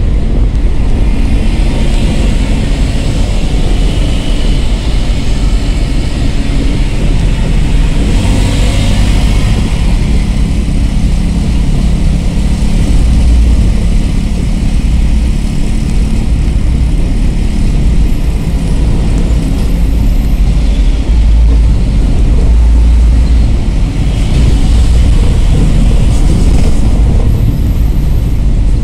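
Steady low engine and road rumble heard from inside a moving angkot minibus, with louder rushes of noise about nine seconds in and again around twenty-five seconds.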